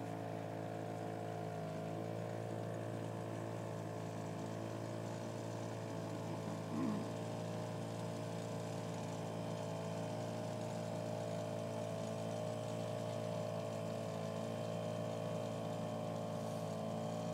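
Small motorboat's engine running steadily at cruising speed, a constant even hum with the boat under way.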